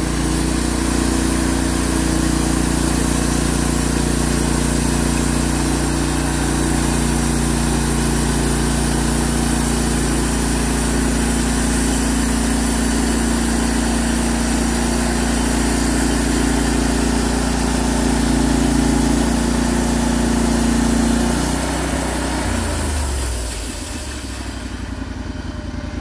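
Portable bandsaw sawmill's Honda gas engine running steadily at high speed while the band blade cuts through a log. About 22 seconds in, the engine note drops and the sound settles to a quieter, lower running.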